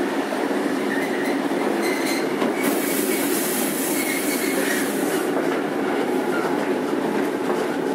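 Randen Mobo 21 retro tram running between stations, heard from aboard: a steady rumble of wheels and running gear on the rails, with faint wheel squeal and a brief rise of high hiss from about three to five seconds in.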